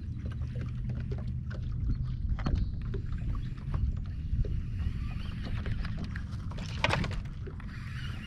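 A baitcasting reel being cranked on a bass boat, with many small ticks and knocks from the reel and rod handling over a steady low rumble of wind and water. A louder rustle comes near the end.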